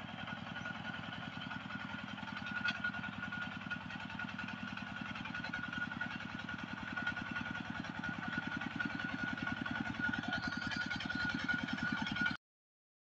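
Kubota two-wheel walking tractor's single-cylinder diesel engine running under load with a steady, rapid chugging, growing a little louder, then cutting off suddenly near the end.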